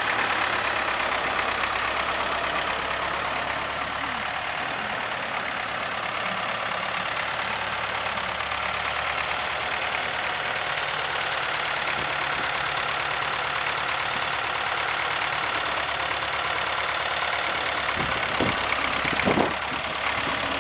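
Porsche-Diesel Master tractor's four-cylinder air-cooled diesel engine running steadily at low speed with a fast diesel clatter as the tractor drives slowly. A few sharp knocks come near the end.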